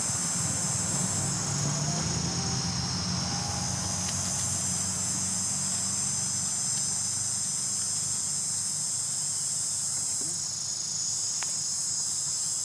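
Steady high-pitched drone of an insect chorus, with a low hum underneath that fades out about halfway through and a few faint clicks.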